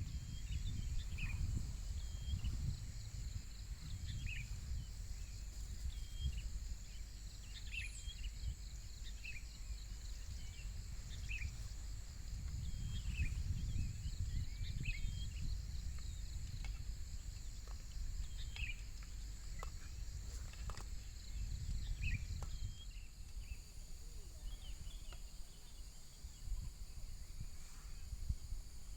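Outdoor ambience: a steady high insect drone, with many short bird chirps scattered through it, over a low, uneven rumble of wind on the microphone.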